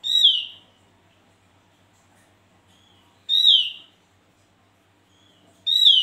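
Opior jawa (Javan grey-throated white-eye) calling: three loud, short downslurred whistles about three seconds apart, each led in by a softer note.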